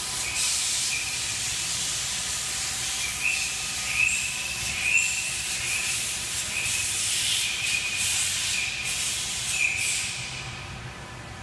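Steady hiss with a wavering high whine running under it, fading away about ten seconds in.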